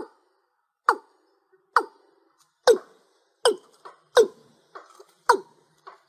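Watercock (cúm núm) calling from a lure recording: a steady series of short, sharp notes, each falling in pitch, a little under one a second. From about halfway on, fainter notes come in between the loud ones.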